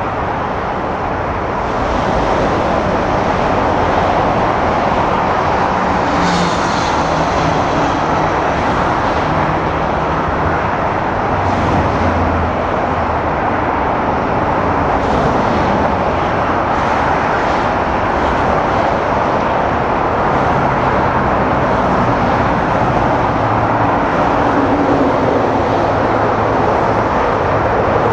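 Airbus A330 jet airliner touching down and rolling out along the runway: a loud, steady jet engine roar with rushing air, swelling slightly about two seconds in.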